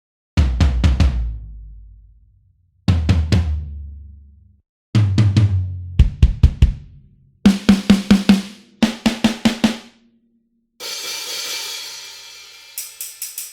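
Sampled acoustic drum kit from the EZdrummer 3 Gospel EZX library, its pieces played one at a time in short runs of quick hits with gaps between. Deep drums come first, then higher-pitched drums, then a single cymbal crash that rings and fades, and a few quick cymbal ticks near the end.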